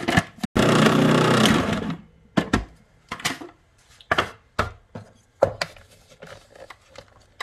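Food processor motor running at speed with ground nuts churning in the bowl for about a second and a half, then stopping. A string of sharp, irregular knocks and scrapes follows as a spatula scrapes the ground nuts down the sides of the plastic bowl.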